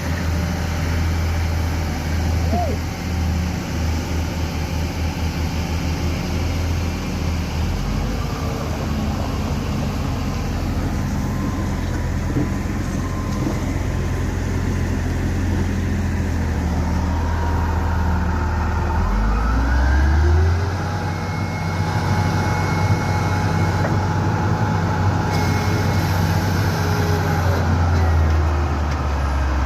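A motor vehicle's engine running steadily with a deep hum, with a rise in revs about two-thirds of the way through.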